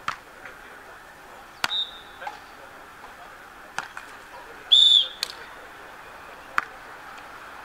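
A beach volleyball rally: sharp slaps of hands and forearms on the ball, about six contacts a second or so apart. About five seconds in, a brief high whistle is the loudest sound.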